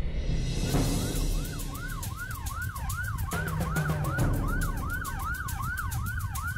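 Police car siren in a fast yelp, its pitch sweeping up and down about three times a second, starting about a second in.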